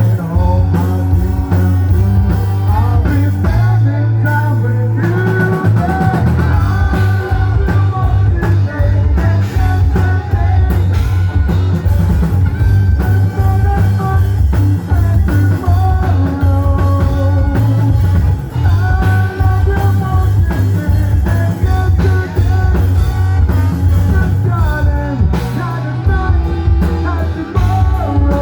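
Rock music with a singer over drums, bass and guitar.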